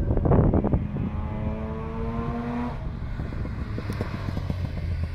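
Mazda RX-7 rotary engine revving hard under acceleration, its pitch climbing, then breaking off about two and a half seconds in before pulling again more faintly as the car approaches. Wind buffets the microphone at the start.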